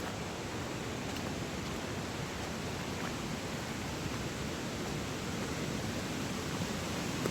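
Steady rushing of flowing water from a mountain river or waterfall.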